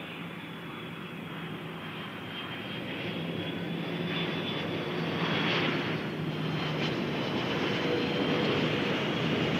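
Airbus A330-200 twin-engine jetliner landing, its jet engines running at approach power. The engine noise carries a thin high whine and grows steadily louder as the aircraft flares low over the runway.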